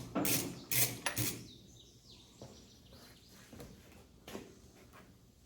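Hand-tool work on metal: a quick run of short rasping strokes, about three a second, stops a little over a second in, followed by a few faint clicks.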